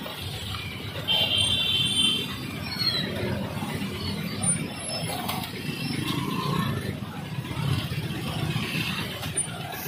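Motorcycle and auto-rickshaw engines running as traffic crawls across a railway level crossing. A vehicle horn sounds for about a second, a second in, with people's voices mixed in.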